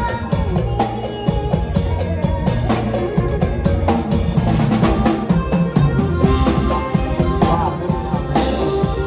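Isan-style live band music: a drum kit beating steadily under a keyboard melody, with no singing.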